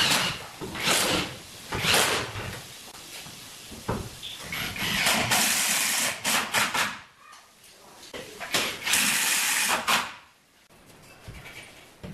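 Cordless drill boring into the wooden cladding at the top of a column, run in short bursts at first, then in two longer runs of a couple of seconds each.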